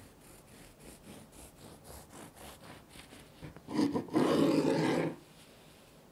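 Serrated bread knife sawing through a loaf of soft milk bread with light rasping strokes, about three a second. About three and a half seconds in comes a louder, rougher rasp lasting over a second, as the blade saws through the bottom crust down to the wooden cutting board.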